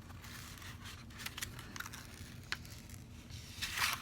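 Rustling and crinkling as a diamond painting canvas and its packaging are handled, with scattered small ticks and a louder rustle near the end.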